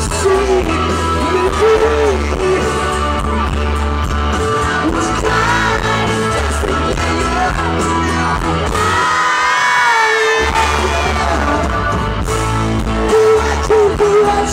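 A rock band playing live with a lead singer, heard loud from within the concert crowd. The bass and drums drop out for about a second around nine seconds in while the singing carries on.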